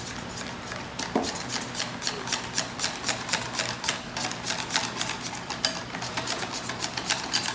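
Wire whisk beating a thick egg-yolk and flour batter in a glass bowl: the wires clicking rapidly against the glass, about four or five clicks a second, starting about a second in.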